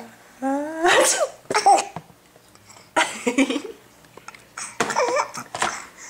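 A person sneezing loudly "ah-choo": a rising "ahh" that ends in a sharp "choo" about a second in, with more short sneezes around three and five seconds in.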